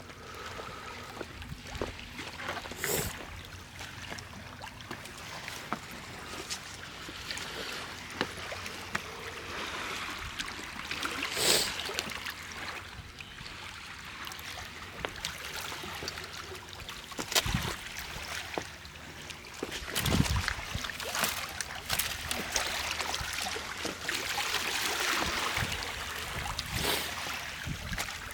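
Small river waves lapping and washing at the shoreline in a rising-and-falling hiss, with scattered sharp clicks and knocks.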